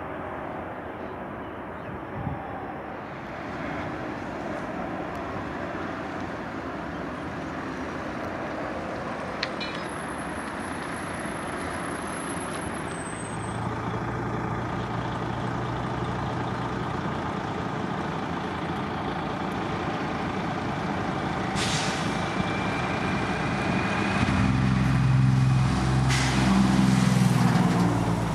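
Jet engine noise from an Airbus A380's four engines at takeoff power, heard from behind as it rolls away down the runway: a steady rush that builds, loudest near the end with a deep low rumble.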